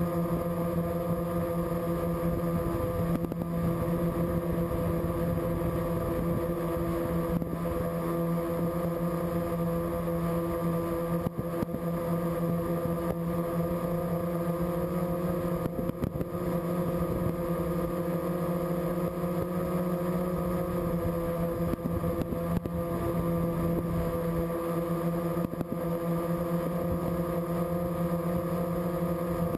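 Multirotor drone's electric motors and propellers running steadily at one unchanging pitch, a buzzing hum with a rush of air.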